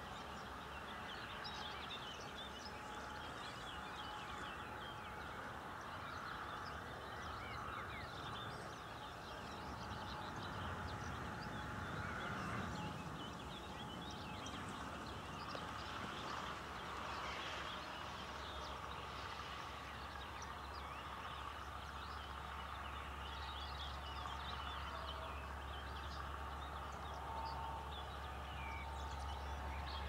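Many small birds singing and calling at once in a dawn chorus, dense overlapping chirps throughout. A low rumble builds underneath in the last third.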